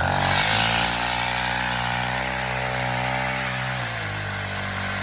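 Gas chainsaw engine catching and revving high. It holds its speed for about three and a half seconds, then drops back to a lower idle near the end.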